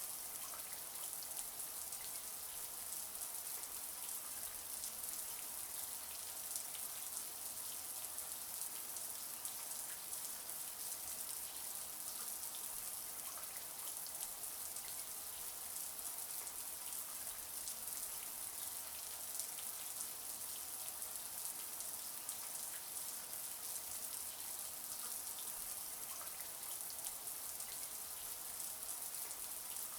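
Shower water running steadily: a continuous high hiss of spray with many fine droplet patters.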